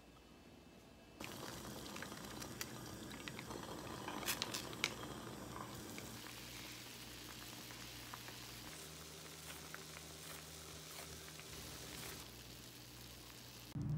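Liquid boiling and bubbling in a clay pot on a gas stove, starting about a second in, with scattered sharp clicks and taps as sauce and ingredients go in.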